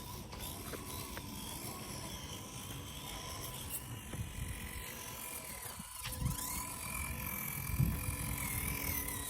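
Micro 1/24-scale RC crawlers' small electric motors and plastic gears whining, the pitch rising and falling with the throttle from about six seconds in.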